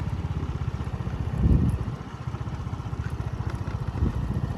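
Small moped engine running with a fast, even putter, and a low thump about one and a half seconds in.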